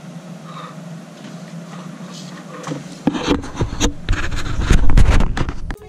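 Hands handling a Bell 4Forty bike helmet: faint rustling at first, then from about three seconds in a dense run of rubbing, clicks and knocks over a heavy rumble, loudest near five seconds in. The sound cuts off abruptly just before the end.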